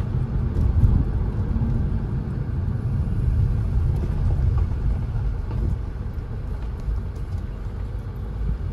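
Steady low rumble of a car driving slowly, heard from inside the cabin: engine and tyre noise, easing off a little about halfway through.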